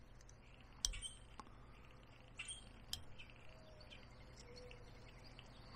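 Carving knife cutting into a poplar dowel: a few faint, sharp clicks as the blade cuts and chips come free, with faint bird chirps in the background.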